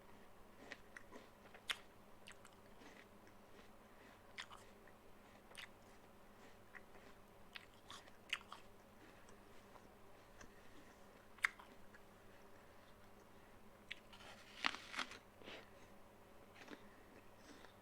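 A person eating a raw apple: scattered crisp crunches of chewing, with a louder cluster of crunches about fifteen seconds in.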